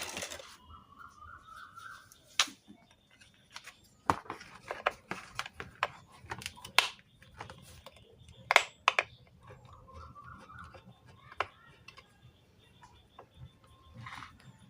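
Scattered small clicks and taps of hand tools and parts on a home theatre amplifier circuit board while an IC is being removed, the sharpest about two and a half, four, seven and eight and a half seconds in.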